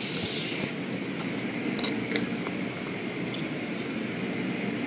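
Automatic car wash tunnel running: a steady rushing rumble of spraying water and machinery, with a few light ticks about two seconds in.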